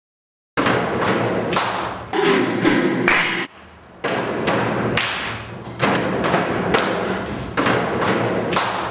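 Loud percussive thumps and taps at a steady beat of about two a second, with a brief drop about three and a half seconds in.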